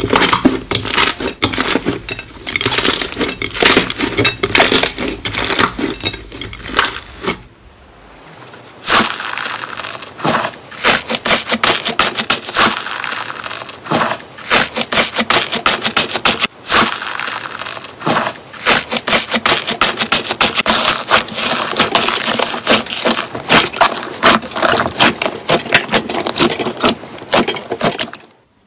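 Crunchy slime being worked and squished, giving dense, fast crackling and popping clicks. A brief lull about eight seconds in marks a change to another clip.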